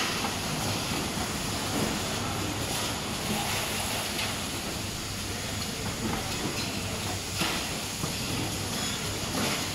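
Gurki carton erecting, folding and sealing line running: a steady mechanical din with a low hum and occasional clacks of cartons and mechanisms.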